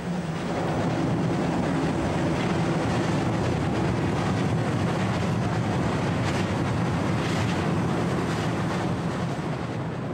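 Steam train hauled by the Prussian T11 tank locomotive Hannover crossing a steel truss bridge: a steady, loud rumble of the train running over the bridge.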